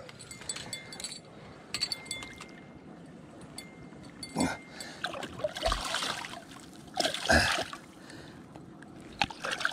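A striped bass splashing and thrashing at the water's surface beside the boat as it is hand-lined in, in several bursts of splashing in the second half.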